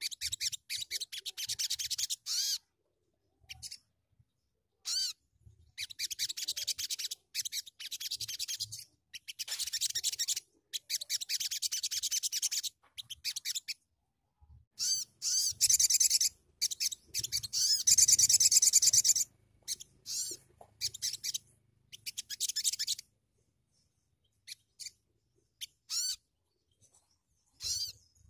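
Small songbird singing in repeated bursts of rapid, high twittering, with short pauses between phrases; the loudest phrases come around the middle.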